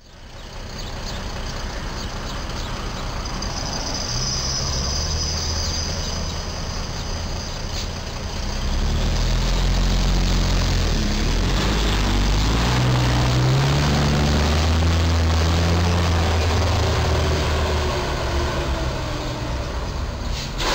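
Street traffic noise, then from about nine seconds in a semi truck's diesel engine grows loud, its pitch rising and falling as it pulls up.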